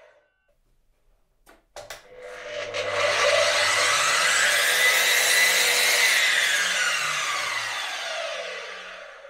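A couple of short knocks, then a belt-driven sliding mitre saw starts up with a whine rising in pitch, cuts through a small piece of wood, and winds down with a falling whine once the trigger is let go.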